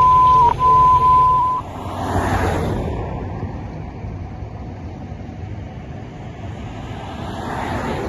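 A loud, steady single-pitch beep tone, broken twice briefly, cuts off about a second and a half in. Then street traffic: a car passes close by about two seconds in and another near the end, over a steady low traffic hum.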